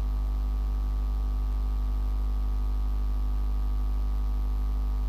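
Steady low electrical mains hum with a stack of evenly spaced overtones and a faint hiss, unchanging in level: the hum of the sound system's feed.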